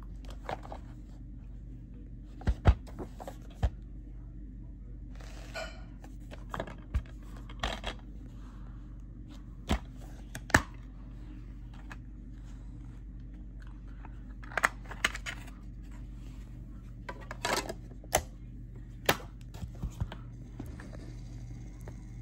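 Plastic DVD case handled and opened: a string of sharp clicks and snaps from the case and the disc, a short rubbing noise about five seconds in, and the loudest snaps about two and a half and ten and a half seconds in. A steady low hum runs underneath.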